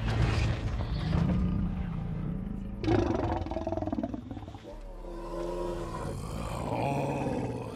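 Film sound design: Megatron, a giant robot, gives a deep, rough mechanical growl and roar, followed by elephants trumpeting in the second half.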